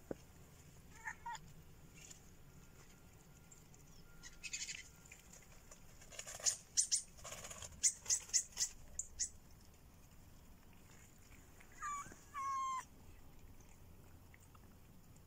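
Kittens meowing: two short high mews just after the start and two falling meows near the end. In between comes a quick run of about eight sharp, very high chirps, the loudest sounds.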